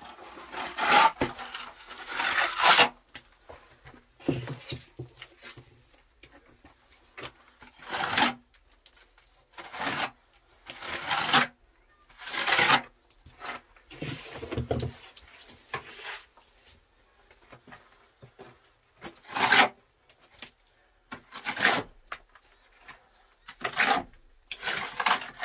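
Steel plastering trowel scraping and smoothing wet plaster onto a masonry wall, in irregular strokes a second or two apart.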